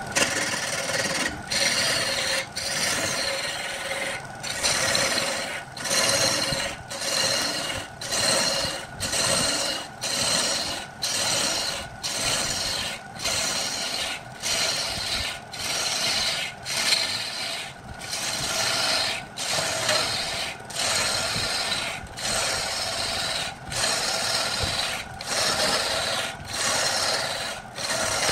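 A wood lathe spinning a large wooden blank while a turning tool is pushed into it again and again, about once a second, each stroke a short scraping rush of cutting with a brief gap before the next. The lathe's steady tone runs underneath.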